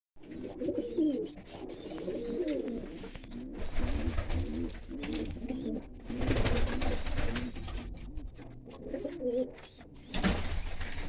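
Old Dutch Capuchine pigeons cooing over and over, in a small room. Three stretches of louder rustling noise come in partway through and again near the end.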